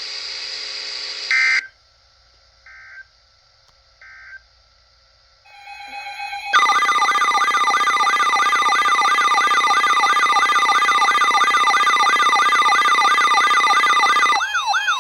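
Emergency alert data signal and attention tone. First three short bursts of digital data tones about a second apart, the end-of-message code of the previous warning. Then, from about six and a half seconds in, a loud electronic alert tone starts: steady tones with a siren-like warble repeating about three times a second, heralding the next warning.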